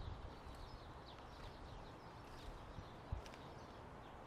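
Garden rake scraping through loose, freshly turned soil, faint, with small birds chirping faintly in the background and a single knock about three seconds in.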